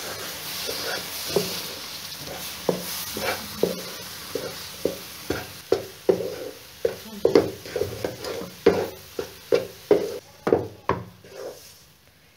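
Wooden spatula stirring and scraping thick besan halwa around a non-stick wok, the strokes quickening to about three a second. A light sizzle fades over the first few seconds as the milk cooks into the roasted besan, ghee and sugar.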